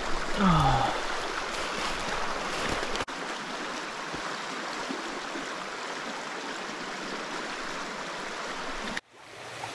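Small stream's water rushing and splashing close by, a steady hiss. A brief falling voice-like sound about half a second in, and the water sound drops out for an instant about three seconds in and again near the end.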